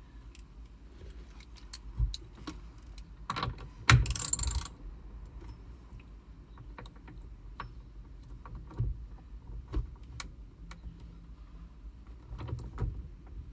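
Scattered metallic clicks and clinks of hand tools and hardware as the steering-wheel nut is threaded and snugged back onto the steering shaft over a new short hub, with a short burst of metal rattling about four seconds in.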